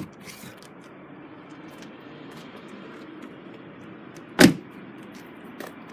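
Volvo V70 estate's tailgate being shut: one loud thump about four and a half seconds in, over a steady low background hum.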